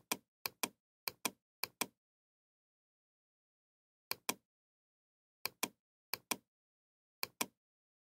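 Computer mouse button clicks, each a quick double tick of press and release: four clicks in the first two seconds, then four more about a second apart, with dead silence between them.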